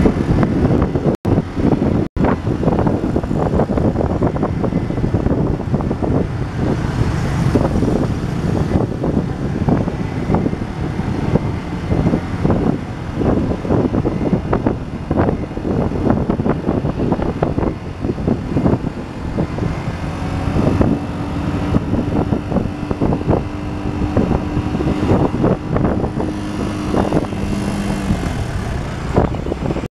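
Riding noise from a moving motorcycle: wind buffeting the microphone over engine and road traffic sound. A steady low hum joins in for several seconds near the end.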